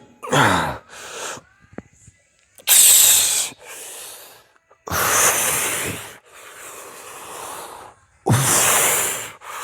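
A man breathing hard from the strain of a set of chin-ups: loud, forceful exhales about every two and a half seconds, with quieter inhales between them. There is a short strained grunt that falls in pitch at the start, and a voiced gasp opens the last exhale.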